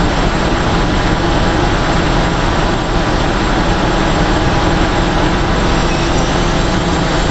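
Heavy construction machinery's diesel engine running steadily under load, a continuous loud rumble and hiss with no breaks.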